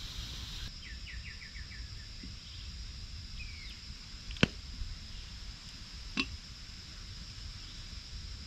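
Riverside outdoor ambience: a steady high-pitched insect drone with low wind rumble, and a bird's quick descending series of about six chirps about a second in. Two sharp clicks stand out, one about four and a half seconds in and another near the six-second mark.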